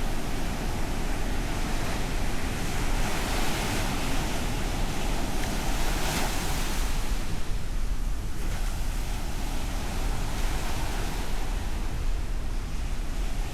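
Ocean surf breaking and washing in, one wave's hiss building to a peak about halfway through and then easing off, over a low wind rumble on the microphone.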